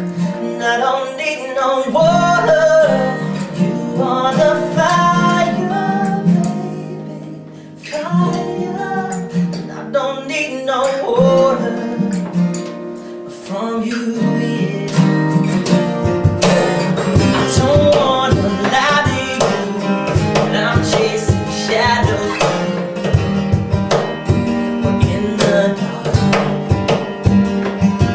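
Live acoustic pop-rock: several acoustic guitars strumming chords under a male singing voice. About halfway through, a steady percussive beat joins in under the strumming.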